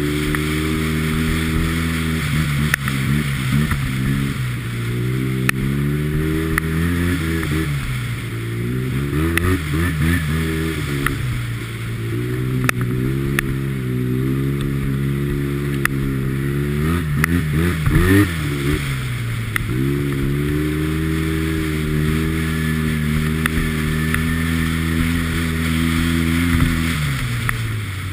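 2010 Arctic Cat Z1 Turbo snowmobile's turbocharged four-stroke twin running under way on a trail. The engine note dips and climbs back several times as the throttle is eased off and reopened, and falls away near the end. Occasional sharp knocks come through.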